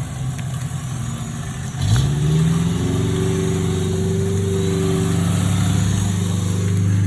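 An off-road 4x4's engine running at low revs, then revving up sharply about two seconds in and holding steady at the higher pitch.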